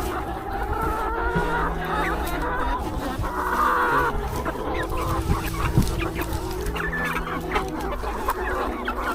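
Chickens clucking, with a harsher squawk about three and a half seconds in, over a low steady hum.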